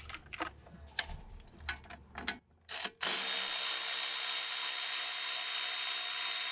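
Cordless ratchet undoing a 10 mm pinch bolt on a strut bracket. A few light ratchet clicks come first as it is fitted to the bolt. About three seconds in its motor runs steadily with a whine for nearly four seconds, spinning the bolt out, then stops suddenly.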